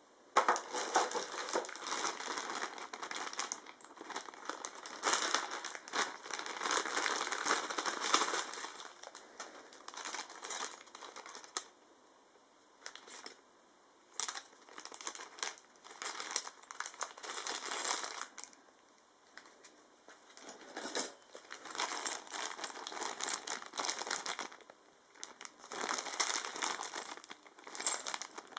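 Clear plastic bags of cooler mounting hardware crinkling as they are handled and opened, in bursts of several seconds with short pauses between.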